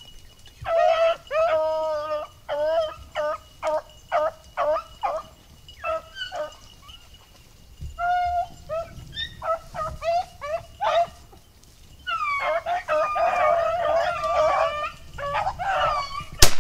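Beagles baying on a rabbit's track: short repeated bawls and chops, several dogs giving voice together toward the end. A single shotgun shot rings out just before the end, as the rabbit is shot.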